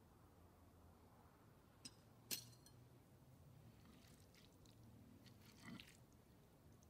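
Near silence at a dinner table, broken by two light clicks of cutlery against a plate about two seconds in, the second louder, and a few fainter small eating noises later.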